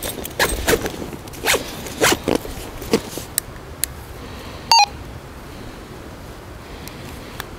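Camouflage backpack zipper being pulled in several quick strokes while the pack is handled, mostly in the first three seconds. Near five seconds in, a short electronic beep from a handheld two-way radio.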